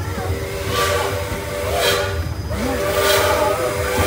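The amusement-park ride train's whistle sounds one long multi-tone blast, held for about three and a half seconds. Under it come rhythmic bursts of hiss about once a second.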